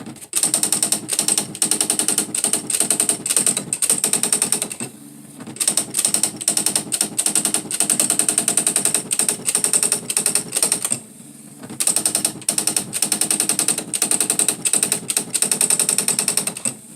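Smith Corona SE 200 electronic typewriter printing on its own through its self demo: a fast, even run of print-wheel strikes, with two short pauses about five and eleven seconds in.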